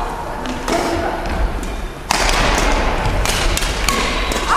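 Badminton rackets hitting a shuttlecock in a rally: several sharp hits and thuds, the loudest about two seconds in, echoing in a large gymnasium hall.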